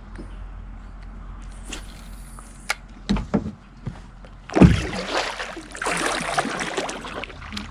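Paddle strokes in the water beside a kayak: a few knocks about three seconds in, then a heavy thump and a stretch of splashing and sloshing from about halfway through.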